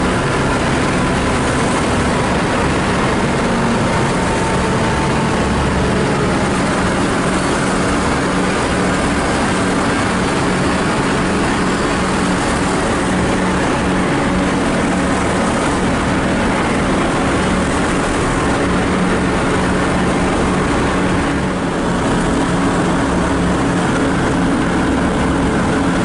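The four Wright R-1820 Cyclone radial engines and propellers of a Boeing B-17G Flying Fortress running steadily in flight, a loud even drone as heard inside the fuselage.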